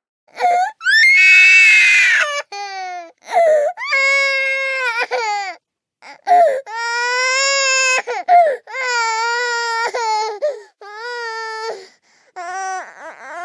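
A toddler's crying voice for a cartoon character: about seven high-pitched wailing sobs in a row, each a second or two long with a wavering pitch, separated by short silent gaps. The first cry, about a second in, is harsher and screamier than the rest.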